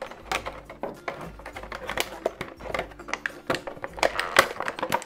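Clear plastic packaging crinkling and crackling in irregular clicks as hands pull a plastic toy out of it.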